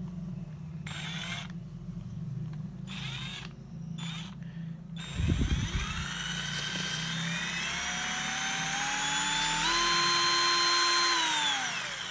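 Ingco cordless drill with a 6 mm bit running free: the motor whine climbs as the trigger is squeezed, steps up to full speed and holds, then winds down as the trigger is released near the end. Before that there are a few short bursts and a single low thump about five seconds in.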